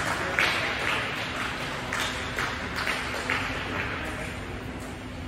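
A few people clapping, separate hand claps that slow and fade out over the first few seconds, with a faint steady hum underneath.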